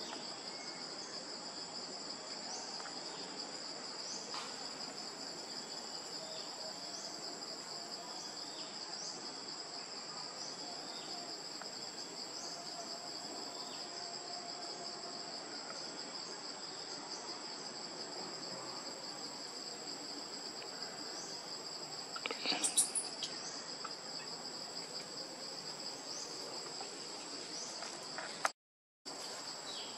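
Steady high-pitched insect chorus droning without a break, with faint short chirps every couple of seconds. About three-quarters of the way through comes a brief, louder burst of clicks, and near the end the sound cuts out for a moment.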